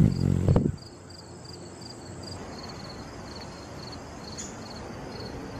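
Hummingbird hovering at a nectar feeder, its wings giving a soft, steady hum. A high chirp repeats about three times a second throughout, and a short loud thump comes at the very start.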